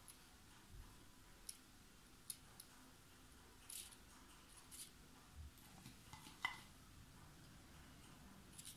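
Faint, scattered clicks and light scrapes of two metal spoons against each other as chocolate-coated cereal is scooped and pushed off into paper cupcake liners. The sharpest click comes about six and a half seconds in.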